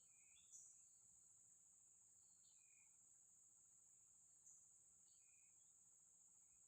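Faint, steady high-pitched drone of insects, swelling slightly twice, with three short falling bird chirps.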